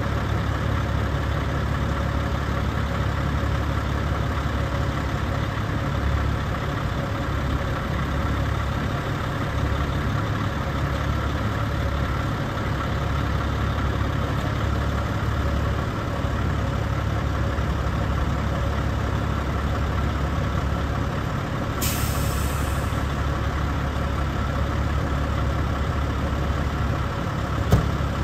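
Diesel engine of a 2007 Sterling LT9500 vacuum truck idling steadily. About three-quarters of the way through comes a short hiss of air lasting about a second.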